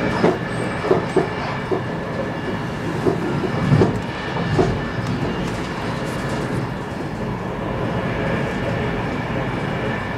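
X10 electric commuter train heard from inside the carriage, running at speed: a steady rumble of wheels on rail with a faint steady whine, and a run of irregular knocks from the wheels over the track in the first half, after which it runs evenly.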